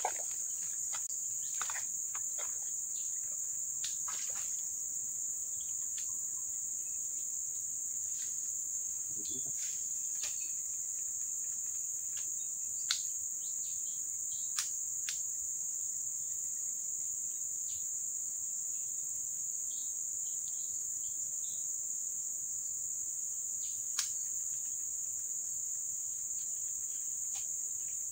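Steady, high-pitched insect chorus, crickets or similar, droning without a break, with a few scattered sharp clicks.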